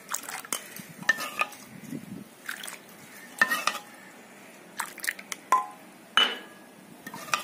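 Kitchen utensils clinking and knocking against a cooking pot and a glass while moringa herbal coffee is served into the glass: a dozen or so irregular sharp clinks, some briefly ringing.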